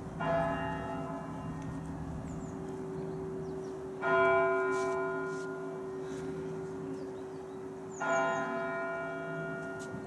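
A church bell in the Novospassky Monastery bell tower tolled slowly, struck three times about four seconds apart. Each stroke rings out with many overtones and fades, over a steady deep hum that carries on between the strokes.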